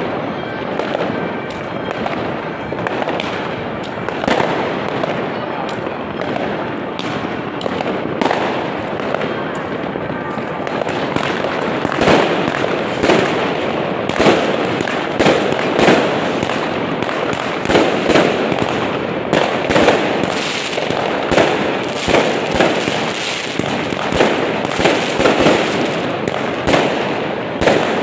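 Fireworks going off in a dense, overlapping run of bangs and crackles, getting more frequent and louder about twelve seconds in.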